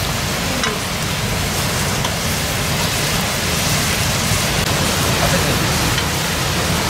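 Chicken pieces frying in a pan over an open wood fire: a steady, even sizzle with a few faint crackles.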